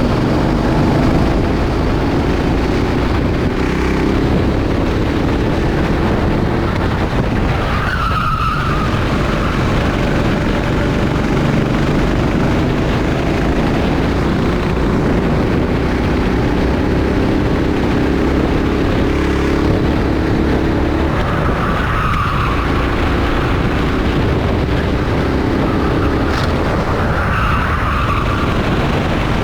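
Rental kart engine running hard, its pitch climbing along the straights and dropping back into the corners. The tyres squeal briefly three times as the kart brakes and turns: about 8 seconds in, about 22 seconds in and near the end.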